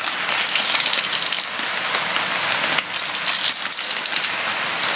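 Rainwater pooled on a sagging camping tarp gushing off its edge as the tarp is pushed up from below, over steady rain. The pour swells twice, about half a second in and again around three seconds.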